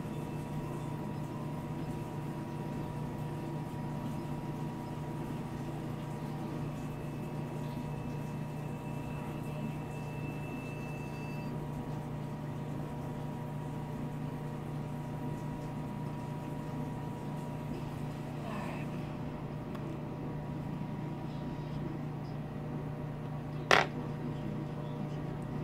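Steady low background hum with a few faint steady tones above it, and a single sharp click near the end.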